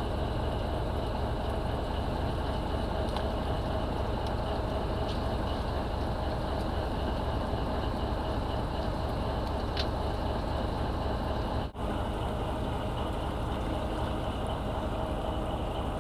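Fishing boat's engine running steadily, a low even rumble with a faint hum on top; the sound cuts out for an instant about twelve seconds in.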